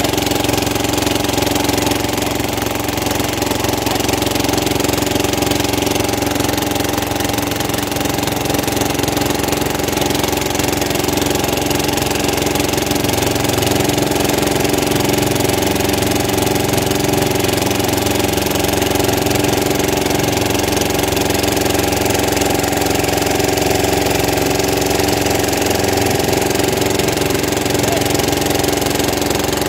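Motorboat engine running steadily, heard from on board while the boat moves along the river: a constant, even drone with no change in speed.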